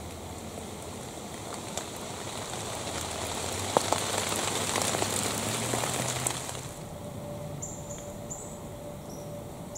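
Outdoor woodland ambience: a steady hiss with scattered sharp crackles and pops, ending abruptly about seven seconds in. After that, quieter ambience with a faint steady hum and short, high chirps near the end.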